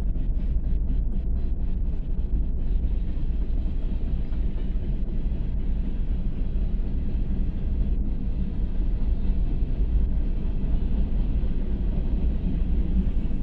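Norfolk Southern freight train of loaded hopper cars rolling steadily through a grade crossing: a constant deep rumble of wheels on rail, with a quick run of rapid clacks over the first couple of seconds. Heard from inside a car, with the high end dulled.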